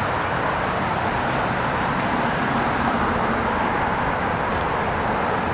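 Steady road traffic noise, an even continuous hum with no single vehicle standing out.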